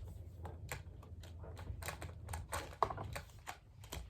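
Plastic dinosaur action figures being handled, giving irregular light clicks and taps over a low steady hum.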